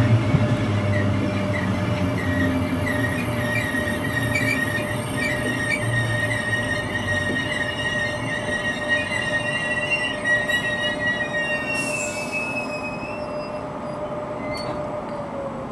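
Passenger train's wheels squealing against the rails as it rounds a curve: a wavering high screech over the running rumble of the coaches, stopping abruptly about twelve seconds in.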